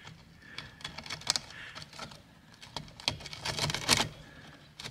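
Hardware-cloth and screen filter basket clicking and scraping against a white PVC pipe fitting as it is pushed in by hand. The light clicks come in two clusters, a little under a second in and again from about three to four seconds in.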